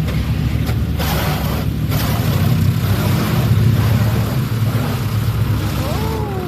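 Automatic car wash heard from inside the car: a loud, steady rush of water spray and machinery working over the car, with a low rumble underneath.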